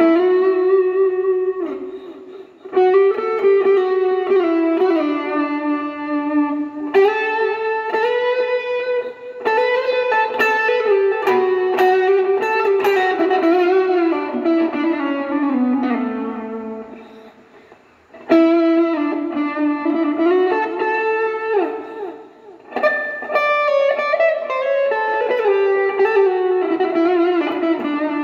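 Electric guitar played through a Mosky overdrive pedal: single-note lead phrases with bends, slides and sustained notes, separated by short pauses.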